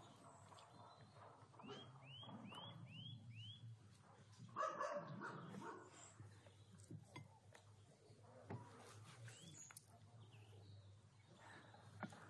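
Quiet outdoor ambience: a bird gives five short falling chirps in quick succession, then a louder animal call sounds about four and a half seconds in, followed by a few faint clicks.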